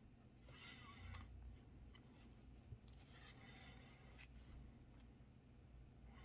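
Faint swishing of glossy Panini Prizm basketball cards sliding against each other as a stack is flipped through by hand. There are two brief spells, about a second in and again around three to four seconds in.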